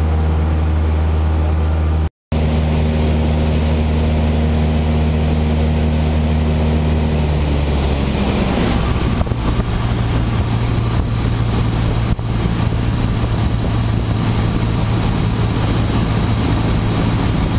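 Cessna Aerobat's piston engine and propeller droning loudly in the cabin, steady at first, then rising in pitch about eight seconds in as the engine speeds up. The sound cuts out for a split second about two seconds in.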